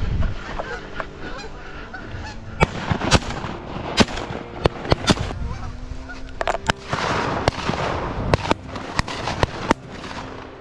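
A large flock of Canada geese honking as it lifts off a pond, many short calls overlapping in quick succession.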